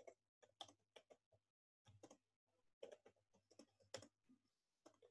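Faint typing on a computer keyboard: a run of irregular keystroke clicks as a short message is typed, with a brief pause about a second and a half in.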